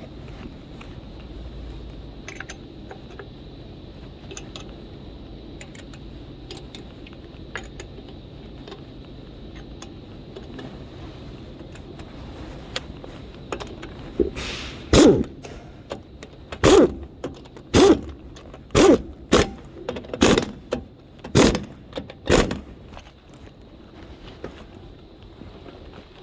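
An impact wrench run on the wheel nuts in a string of about nine short bursts, each about a second apart, in the second half. Before that come small metallic clinks of nuts and tools being handled.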